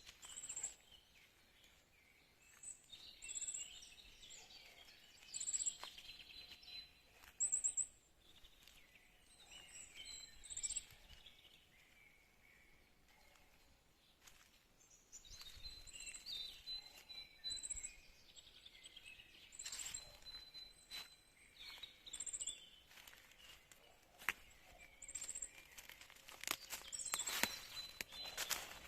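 Birds calling and singing in a forest: short high chirps recurring every second or two over varied, warbling song with a thin held whistle, and a few sharp clicks, most of them near the end.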